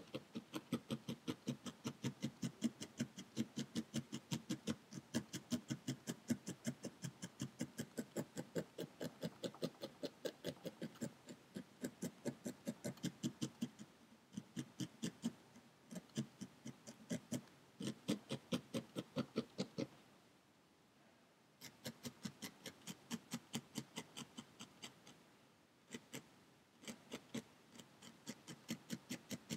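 Felting needle stabbing repeatedly through a small ball of wool roving into a foam felting pad, about three quick pokes a second, to press shallow ridges into a needle-felted pumpkin. The pokes pause briefly a few times and stop for about a second and a half just past two-thirds of the way through.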